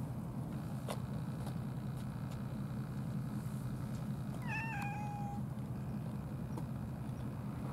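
A domestic cat meows once, a short call about halfway through, over a steady low rumble.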